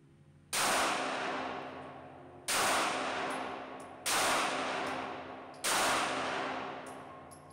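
Four 9mm shots from a Glock G48 pistol, about one and a half to two seconds apart, each followed by a long echo that dies away in the indoor range. Faint background music runs underneath.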